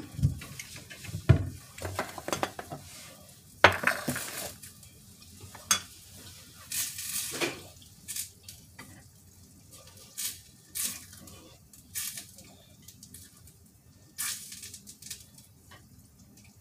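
Cookware being handled while cooking: a utensil clinking, knocking and scraping against pots and pans at irregular intervals, with a few short bursts of hissing noise.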